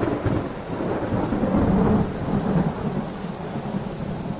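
Thunder rolling over steady rain: a long low rumble that swells about a second and a half in, then slowly fades.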